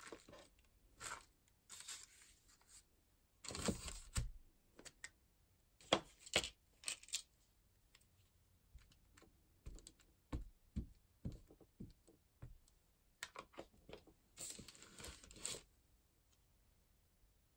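Handling noise from stamping with a clear acrylic stamp block: irregular light taps and clicks as the block is pressed, lifted and set down, with paper rustling. There are two longer rustles, one about four seconds in and one near the end.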